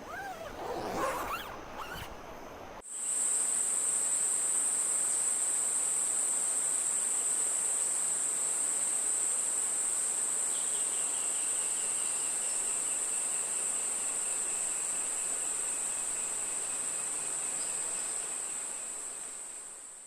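A steady, high-pitched insect drone starts abruptly about three seconds in and fades out at the very end. A fainter pulsing insect call joins it halfway through. Before the drone, a short animal call slides up and down in pitch.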